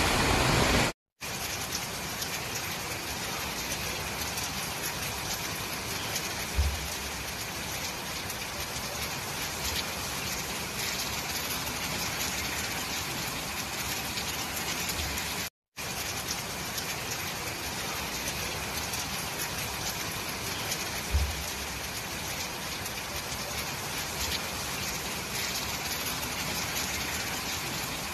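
Steady rain falling, an even hiss with no letup. It breaks off to silence for a moment about a second in and again around the middle, and there are two faint low thumps.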